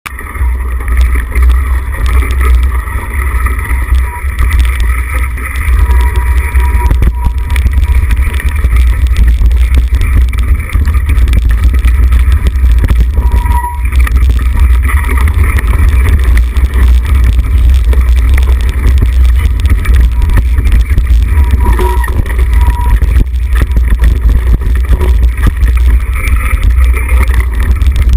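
Mountain bike riding fast down a dirt and gravel forest trail, recorded on a camera riding with it: heavy wind rumble on the microphone over tyre noise on the loose surface and frequent rattles and knocks from the bike over rough ground.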